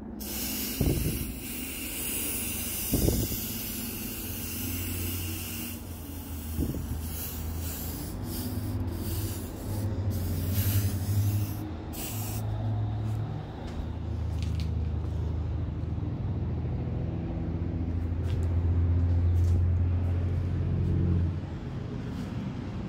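Aerosol spray paint can hissing as it sprays paint onto a plastic bottle, in long bursts that stop about twelve seconds in. A low rumble runs underneath throughout and is loudest near the end.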